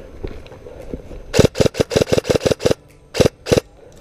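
An airsoft electric rifle, a G&G Predator M4, firing close to the microphone: a quick string of about nine shots, then two more after a short pause.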